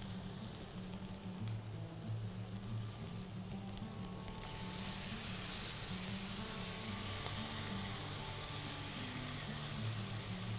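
Chicken breast pieces frying in hot oil in a pan: a steady sizzle that grows a little louder about four seconds in.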